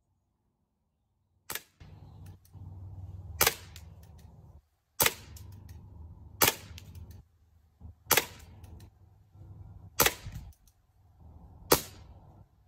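CO2-powered Schofield 6-inch airsoft revolver firing six shots, each a sharp crack, about one and a half to two seconds apart, with fainter clicks between the shots.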